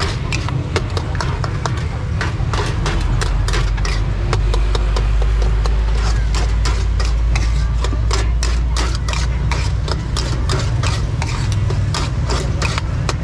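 Metal spoon scraping and clinking against a small wok as corn kernels are stir-fried, a rapid run of quick metallic strikes. A low steady rumble of motorbike traffic runs underneath.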